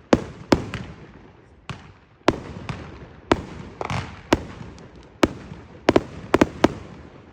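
Fireworks exploding: about a dozen sharp bangs at uneven intervals, several coming in quick clusters near the end, each trailing off in an echo.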